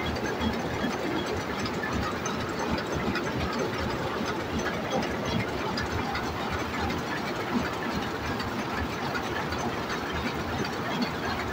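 Jacquard loom weaving at full speed: a steady, dense mechanical clatter of rapid knocks.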